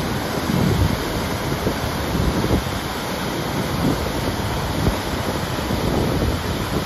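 A waterfall and white-water river rushing steadily through a narrow rock gorge, a continuous dense rush of water. Wind buffets the microphone in irregular low gusts over it.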